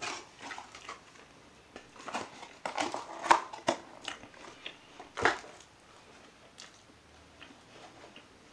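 Close-up chewing of a mouthful of Big Mac: irregular wet clicks and crackles, loudest from about two to five seconds in, then fading.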